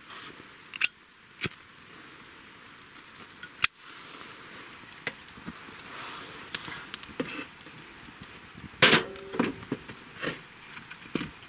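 Firewood burning in a steel fire grill, crackling with scattered sharp snaps and pops. About nine seconds in, a log is set onto the grill with a cluster of knocks and a brief metallic clink.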